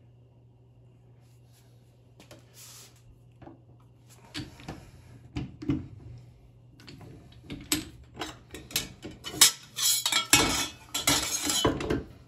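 Hand-cranked slip roll forming a sheet-metal muffler tube: scattered metallic clinks and knocks of the rollers and sheet. Near the end a loud, dense metallic rattle as the rolled tube is slid off the roller.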